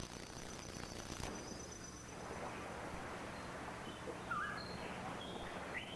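Natural ambience: an insect's steady high trill in the first second or so, then from about four seconds in a bird calling with short whistled notes that jump up in pitch, repeated several times, over a soft background hiss.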